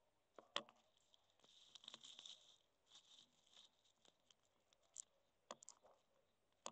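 A Nile monitor feeding and moving over ground turkey and the enclosure floor: faint scratchy rustles broken by sharp clicks, the loudest about half a second in and a few more near the end.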